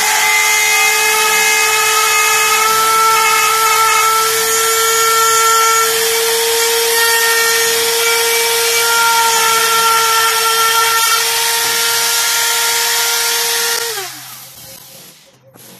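Palm router running at full speed, its bit cutting a pocket for the trigger housing in a wooden rifle stock with a steady high whine. About fourteen seconds in it is switched off and the whine falls in pitch as the motor winds down.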